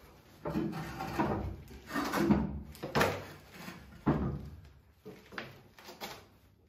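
Irregular knocks, clunks and scrapes of a cast iron stove being worked by hand into a fireplace, about seven or eight separate hits.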